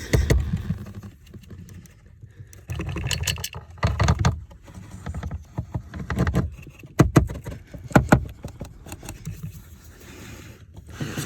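Irregular knocking, clicking and rattling of a car's plastic blower-motor housing being pushed and worked into its mounting under the dash, with two sharp knocks near the end.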